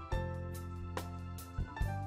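Background music: a soft instrumental track with piano-like keyboard notes over a sustained bass.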